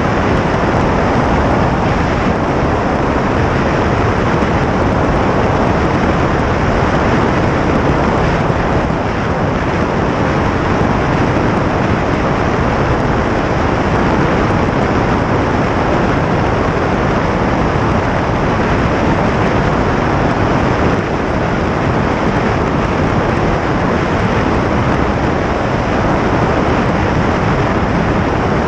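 Steady loud rush of airflow buffeting an externally mounted camera on a small low-wing airplane in flight, with the airplane's engine noise blended in.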